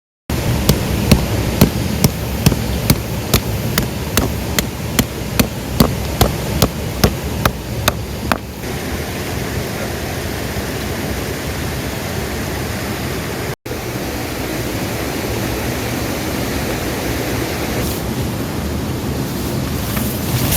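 Steady rushing noise, with a run of sharp, evenly spaced knocks, about two and a half a second, over the first eight seconds.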